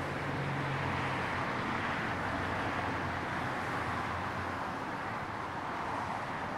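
Steady rushing noise of highway traffic, even and continuous, with a faint low engine hum in the first second or two.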